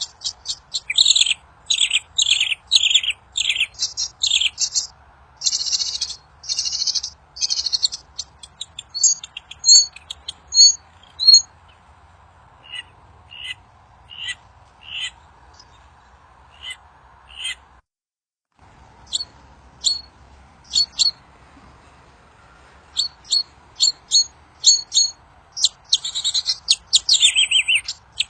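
The bird the title calls 'burung kincir angin' (windmill bird) singing: quick runs of high chirps and trills, dense at the start and near the end, with sparser single notes in between. A faint steady hum lies underneath, and everything drops out for a moment about two-thirds of the way through.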